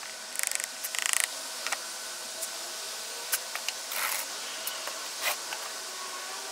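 Hand tools and hands working a sand-casting mold and its wooden flask: two short scraping bursts about a second apart near the start, a brief scrape about four seconds in and scattered light knocks and clicks, over a steady hiss.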